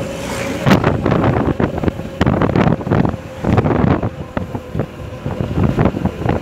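Wind buffeting the microphone of a moving motorcycle in uneven gusts, over the low running of the motorcycle's engine.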